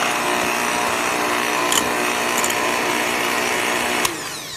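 Electric hand mixer running steadily, its beaters whipping eggs in a stainless steel bowl, with an occasional click. It is switched off about four seconds in and the motor winds down, its pitch falling.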